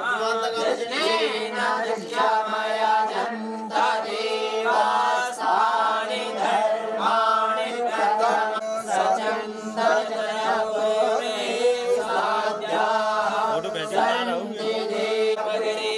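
A group of voices chanting Hindu mantras together, continuous and unbroken, over a steady low tone.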